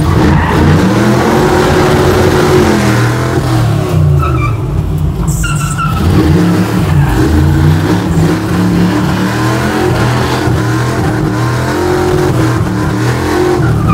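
Small-block Chevy V8 of a square-body Chevy C10 drift truck revving up and down over and over while drifting, with tyres screeching and skidding.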